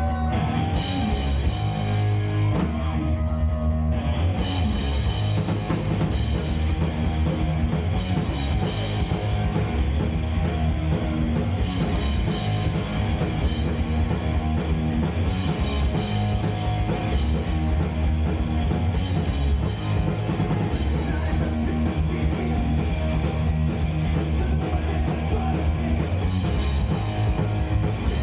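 Live hard rock band playing at full volume: distorted electric guitars, bass guitar and a drum kit.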